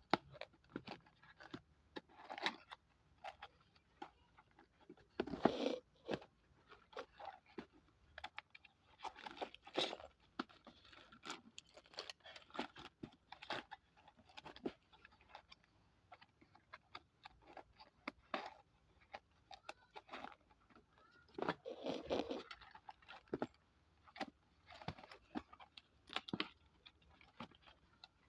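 Packaging and small parts being handled: irregular crinkling, clicks and crunches, with two longer, louder bursts of rustling.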